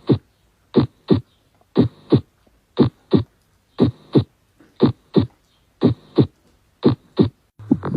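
Human heart sounds: a paired lub-dub thump, the two sounds about a third of a second apart, repeating steadily about once a second, eight beats in all.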